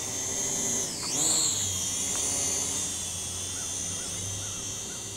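Small quadcopter drone's propellers whining in flight as it is brought in to land. The whine's pitch drops sharply about a second in, climbs back up, then holds steady.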